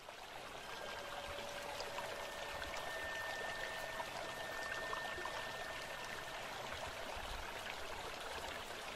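River water flowing and trickling steadily. Two faint steady tones, one low and one high, are held for several seconds from about a second in.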